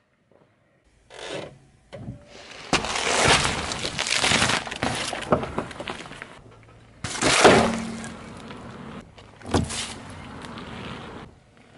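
A car tyre rolling over and crushing objects on asphalt: a string of crunches and cracks in several separate bursts, the loudest about seven seconds in.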